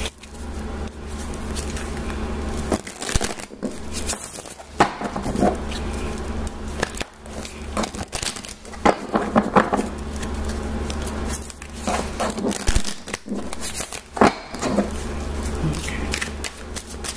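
Oracle card deck being shuffled by hand: an irregular run of papery rustles and short clicks, over a steady low hum.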